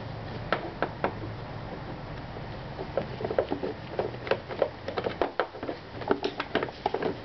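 Irregular light clicks and taps of a Phillips screwdriver working screws and of hands handling a plastic scooter body panel, busier in the second half.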